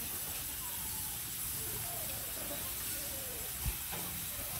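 Steady background hiss with faint, short whining calls that bend in pitch, and a single dull bump about three and a half seconds in.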